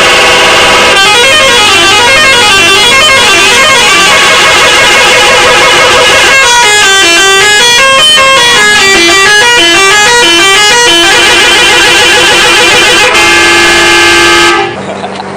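Indonesian bus 'telolet' horn, a multi-tone musical horn, playing very loud rapid runs of notes that step up and down like a tune. Near the end it holds one chord, then cuts off suddenly.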